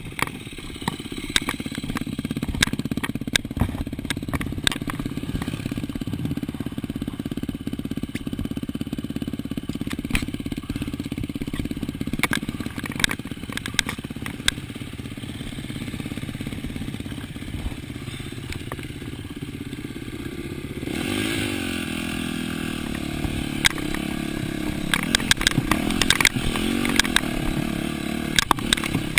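Yamaha dirt bike engine running steadily at low revs, with scattered clicks and knocks. About 21 seconds in, the revs rise and fall as the bike is ridden, and the clatter grows louder.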